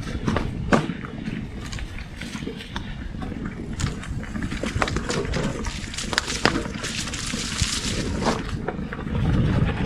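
Biktrix Juggernaut Ultra full-suspension electric mountain bike ridden over a rough trail: tyres rolling on dirt with many sharp knocks and rattles as the bike and suspension hit bumps. Wind on the microphone rises near the end.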